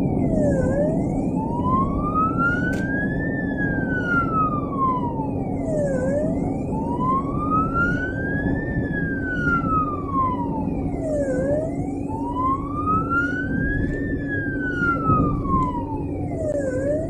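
Ambulance siren on a slow wail, rising and falling about every five seconds, heard from inside the moving ambulance over steady engine and road noise.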